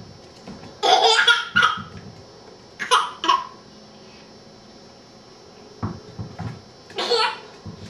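A baby laughing in three loud bursts, about a second in, around three seconds and near the end. A few soft knocks come between the second and third bursts.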